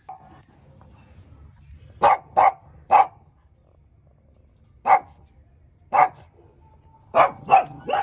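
Shih Tzu barking in short, sharp barks, about seven in all, coming in small groups of two or three from about two seconds in. He is barking back at a dog below.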